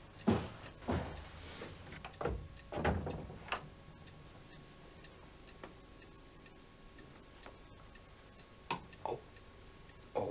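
Footsteps and knocks on wooden floorboards, about half a second to a second apart, in the first few seconds, then faint ticking, and two or three more knocks near the end.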